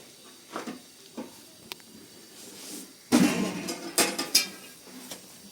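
Objects being handled: scattered light knocks and clicks, a louder short clatter about three seconds in, then a few sharp clicks.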